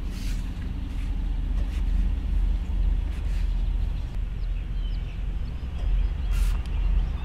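Steady low outdoor rumble, with a brief spritz from a hand spray bottle about six seconds in, sprayed onto a bicycle inner tube to find a slow leak.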